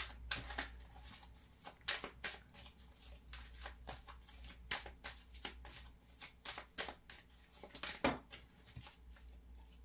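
A deck of divination cards being shuffled by hand: irregular soft clicks and slaps of cards, about two a second, the loudest about eight seconds in.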